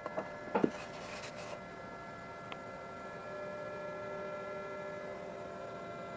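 A few light knocks as a hardboard backing panel is set into the wooden frame's opening, then a steady, faint electrical hum made of several fixed tones.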